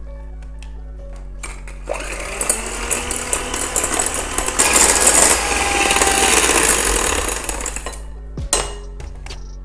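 Electric hand mixer whisking egg yolks and caster sugar in a glass bowl; it starts about two seconds in and stops about eight seconds in. Background music plays throughout.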